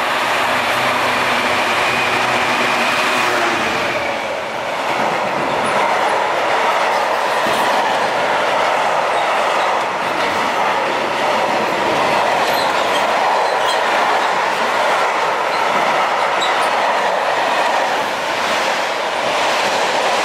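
Diesel freight locomotive running past close by, its engine heard for the first few seconds. Its long train of box wagons then rolls steadily by, with the clickety-clack of wheels over rail joints and a few faint brief wheel squeals.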